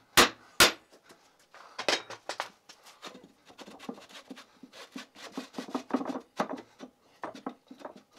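Two sharp hammer blows on metal just after the start, then irregular scraping, rubbing and clunking as the drill press's head is twisted and worked up its round steel column.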